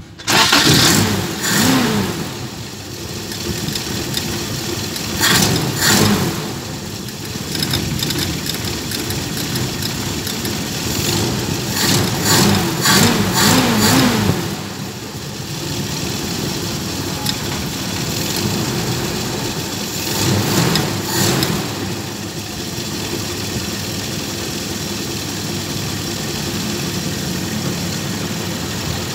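Toyota 5K four-cylinder engine, running on a 4K carburetor, starting up and idling, with the throttle blipped in four brief surges: about a second in, around 6 s, around 13 s and around 21 s. It runs after a new carburetor gasket and fuel filter were fitted to cure hard starting and misfiring.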